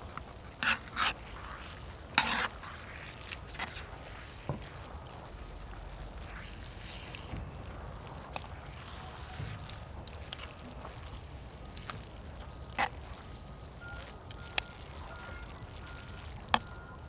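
Scattered sharp clicks and knocks over a low steady background, with a few short louder bursts in the first three seconds, as of kitchen work with dishes and utensils. Near the end a faint short tone repeats at an even pace.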